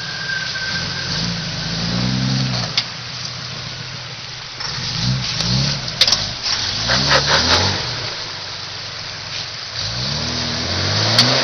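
Lifted Jeep Cherokee's engine revving up in about four short swells as it crawls over creek-bed boulders, working against the rocks at low speed. A few sharp knocks come in the middle.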